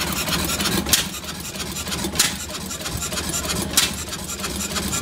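Vintage hit-and-miss stationary gas engines running, a sharp exhaust pop about every second and a half over a steady low engine drone.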